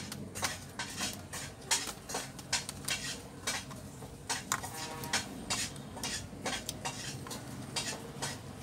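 Small screwdriver working screws out of a Lenovo G450 laptop's chassis: irregular clicks and taps of metal on the screws and the plastic case.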